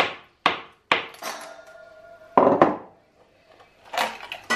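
Hammer blows on a screwdriver wedged behind a ceramic wall tile: three sharp strikes about half a second apart. Then comes a grating scrape, louder about two and a half seconds in, as the tile is prised loose, and near the end a few clinks as it is levered off the wall.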